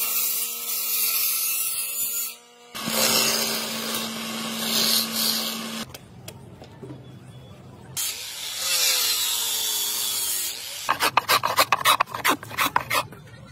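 An electric table saw running with a steady hum and the rasp of its blade cutting through willow, in two passes with a short break between. Near the end, a quick run of sharp scraping strokes as a hand blade shaves the face of the willow bat.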